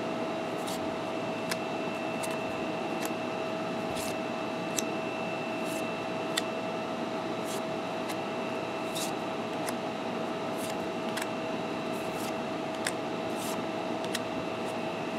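Trading cards being handled and flipped one at a time off a stack, giving short crisp flicks and slides about once a second at an irregular pace, over a steady background hum with a constant high whine.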